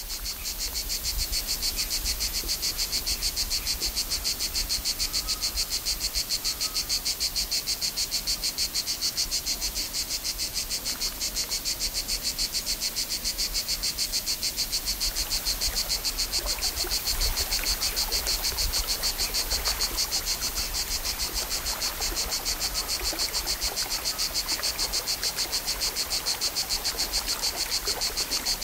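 Chorus of insects, such as crickets or cicadas, giving a steady, high-pitched buzz that pulses at a fast, even rate, over a faint low rumble of outdoor ambience.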